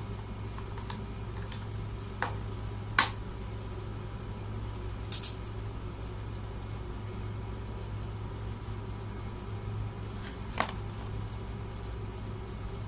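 A few sharp clicks and knocks as audio cables are handled and their plugs pushed into the jacks of a V800 sound card, the loudest about three seconds in, over a steady low hum.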